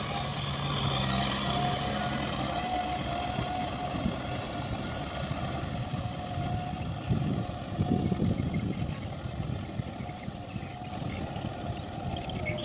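Kubota tractor's diesel engine running steadily under load as it drags a tilling implement through wet paddy mud, growing fainter as the tractor moves away.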